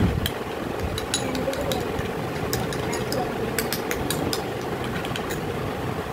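A metal spoon stirring a thin paste in a glass bowl, giving irregular light clicks and scrapes against the glass, over a steady mechanical hum.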